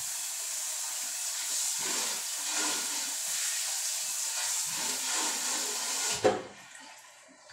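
A steady hiss that stops abruptly with a single knock about six seconds in.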